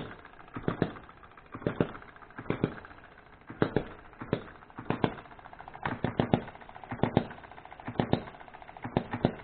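Odds and Ends model hit-and-miss engine running on its own: sharp firing pops, mostly two close together about once a second, with the engine coasting between the hits as its governor lets it fire only when speed drops.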